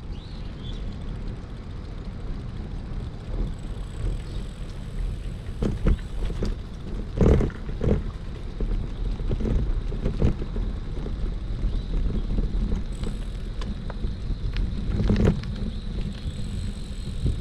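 City street ambience picked up while walking: a steady low rumble with a few sharp knocks, the loudest about seven seconds in.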